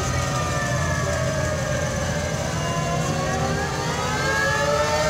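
Several antique fire truck sirens wailing at once, their pitches slowly rising and falling and crossing one another, over a low engine rumble.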